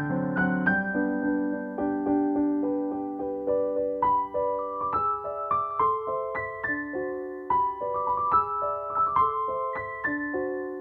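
Background music: a gentle piano melody of single notes over sustained chords.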